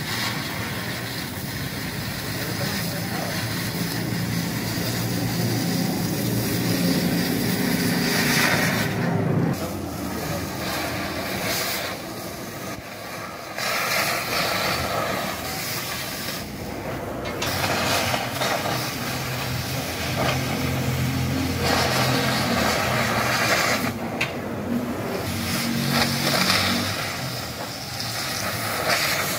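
Oxy-fuel cutting torch hissing as it cuts through steel bolts, the hiss growing louder and sharper several times. An engine hums steadily underneath.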